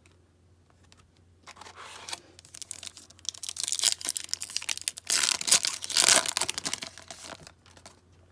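Foil trading-card pack wrapper being torn open and crinkled. It comes in irregular crackling spells, loudest twice in the middle, then dies away.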